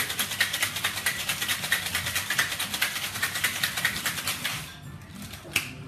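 Cocktail shaker shaken hard with ice inside: a fast, even rattle that stops about four and a half seconds in, then a single sharp click near the end.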